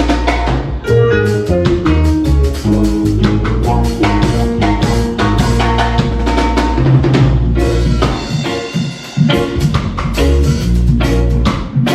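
Live roots reggae band playing an instrumental passage: drum kit with rimshots, snare and bass drum over a bass line and pitched guitar or keyboard parts. The bass drops out briefly about eight to nine seconds in.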